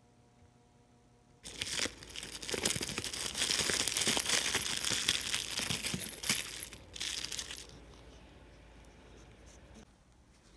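Orange plastic bubble mailer crinkling and rustling as it is handled, a dense crackle that starts about a second and a half in and dies away after about six seconds.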